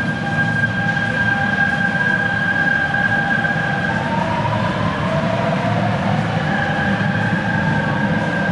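Shanghai Metro train running: a steady rumble with whining traction-motor tones above it, one of which rises in pitch about halfway through.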